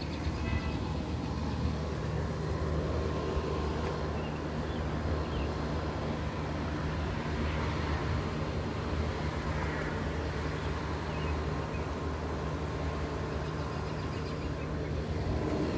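A vehicle's engine or motor running steadily, with a constant low drone and a faint higher whine.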